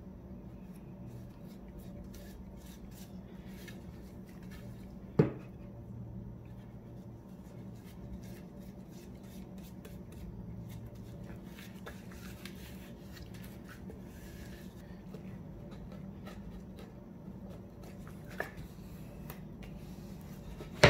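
Soft rubbing and scraping of a brush working wood stain onto a pine board, with a sharp knock of wood on the worktop about five seconds in and another as the board is set down at the close. A steady low hum runs underneath.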